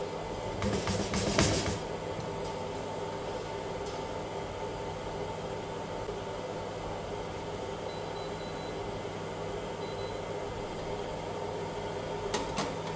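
Skywalker coffee roaster running in cooling mode: a steady mechanical hum from its fan and motor. Short bursts of knocks come about a second in and again near the end.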